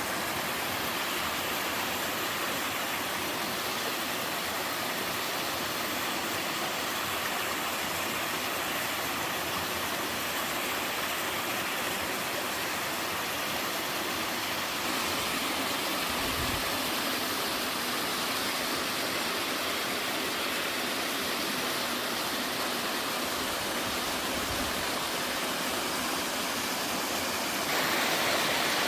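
Waterfall pouring into a mountain stream: a steady, dense rush of falling water that grows a little louder about halfway through and again near the end.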